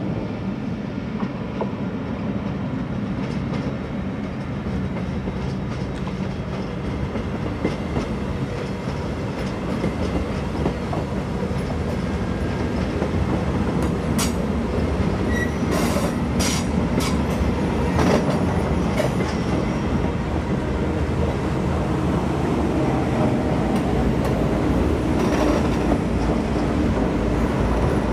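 Passenger trains rolling slowly over station tracks: a steady rumble of wheels on rail that grows louder, with a cluster of sharp clicks and clatter over the points and a brief high squeal about halfway through.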